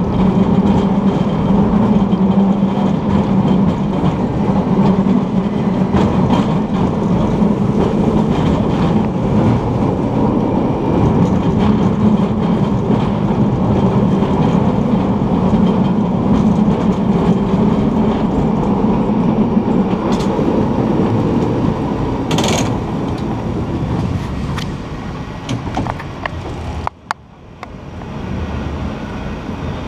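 San Francisco cable car rolling along its track: a steady rumble and low hum from the wheels on the rails and the cable running in its slot beneath the street. There is a brief high-pitched sound about two-thirds of the way through, and the noise grows quieter over the last few seconds.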